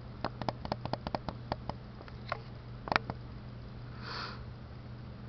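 A quick run of light, sharp taps, about a dozen in the first second and a half, then a few scattered ones with a louder tap about three seconds in, over a low steady hum. A soft breath near the end.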